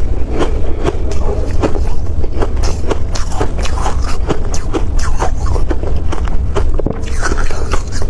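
Close-up crunching and chewing of freezer frost: a rapid run of sharp, crisp crunches, several a second, over a steady low rumble.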